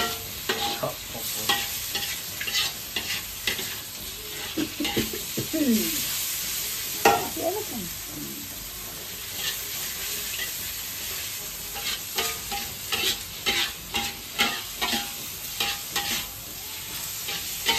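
Diced chicken sizzling in oil in a wok, with a spatula scraping and knocking against the pan as it is stir-fried. The scraping strokes come quick and close together in the last few seconds.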